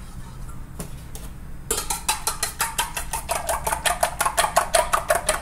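Eggs being beaten with a metal fork in a stainless steel bowl: a few light taps, then from about two seconds in, a fast, even run of clinks as the fork strikes the bowl several times a second.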